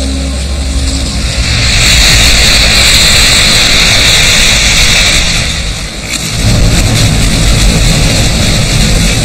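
Southern right whale breaching: a loud rush of water pouring off its body as it rises, then, after a brief dip about six seconds in, a heavier splash and churning spray as it falls back into the sea.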